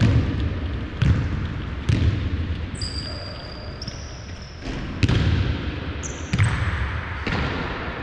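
A basketball bouncing on a hardwood court, about six knocks at uneven intervals, each echoing in the large hall. Two high, drawn-out squeaks, likely sneakers on the wooden floor, come about three and six seconds in.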